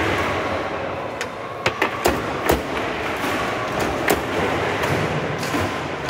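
Foosball table in play: sharp irregular knocks and clacks of the ball being struck by the plastic men and hitting the table, with the rods shunting, over a steady hall background. The knocks come in a quick cluster around two seconds in, again about four seconds in, and once at the end.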